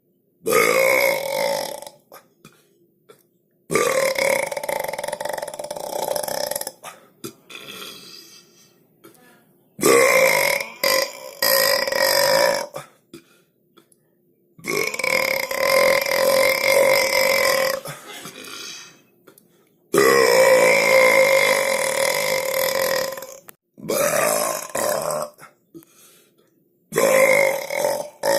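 A series of about eight long, drawn-out human belches, one after another with short pauses between them. Several last two to three seconds.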